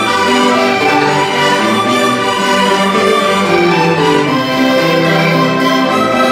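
Ensemble of six accordions with a guitar playing a lively contradança folk dance tune together. The melody runs over bass notes that change every second or so, at a steady level with no pauses.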